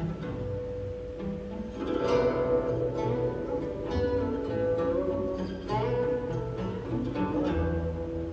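Guqin plucked notes, some sliding in pitch, played over sustained electric organ chords and low bass notes.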